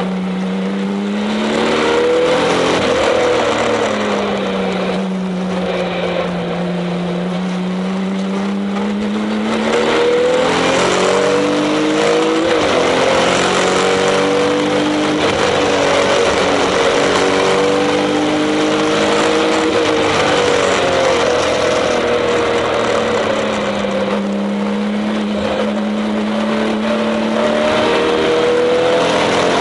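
Porsche 996 Turbo's twin-turbocharged flat-six engine heard from inside the cabin at speed, its pitch rising and falling several times as the driver accelerates and lifts through corners. The revs are held high through the middle, dip, and climb again near the end.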